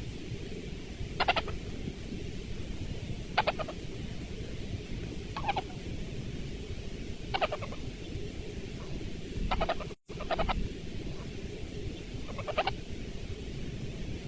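French bulldog puppy snoring: a short, high-pitched squeaky snore about every two seconds over a steady low background noise, with a brief break about ten seconds in.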